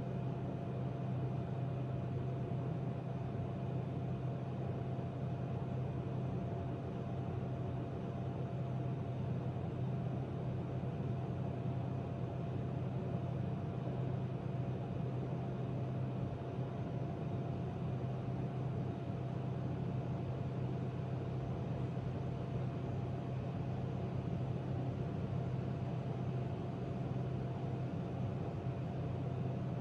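A steady low machine hum with a faint constant high tone above it, unchanging throughout.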